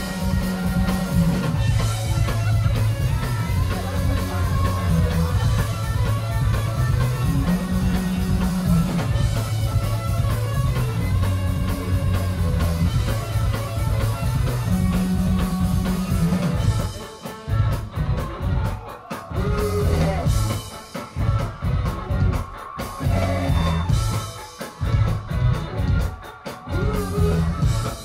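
Live rock band playing loud electric guitars and drum kit. About two-thirds of the way through it breaks into a stop-start section of short, punched hits with brief gaps between them.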